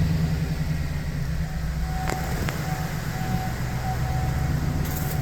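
2008 GMC Sierra's 5.3L V8 idling with a lumpy, uneven beat, almost like a high-performance camshaft but without knocking. The beat comes from misfiring cylinders, which the owner puts down to collapsed valve lifters.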